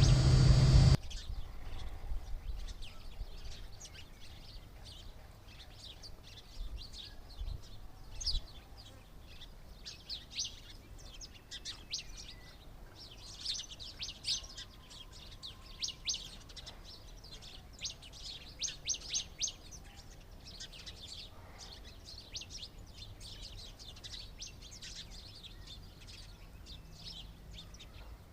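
Small birds chirping in many short, high notes, in clusters that come and go. Before them, a loud passage of music stops abruptly about a second in.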